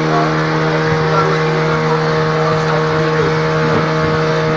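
A motor running steadily at constant speed, giving an even, unchanging hum.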